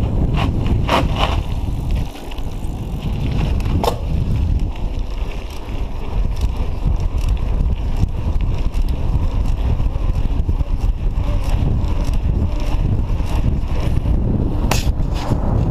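Heavy wind buffeting the microphone as a mountain bike rolls downhill on a paved lane, with tyre rumble underneath. A few sharp clicks and rattles from the bike stand out about a second in, near four seconds and near the end, with lighter ticking in between.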